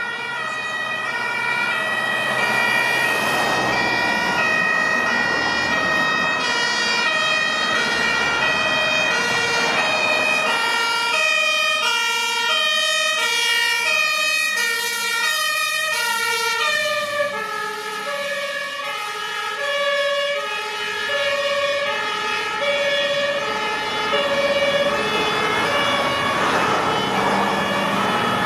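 German two-tone emergency sirens on fire engines driving on call, stepping back and forth between a high and a low note, with vehicle engines running underneath. For the first half several sirens overlap at different pitches along with a steady high tone. A little past halfway this drops to a single siren's clear high-low alternation.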